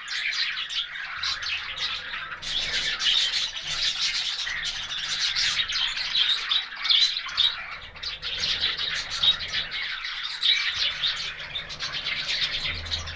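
A dense chorus of many caged parrots chirping at once, a continuous overlapping chatter of short, high calls, with a faint low hum coming and going underneath.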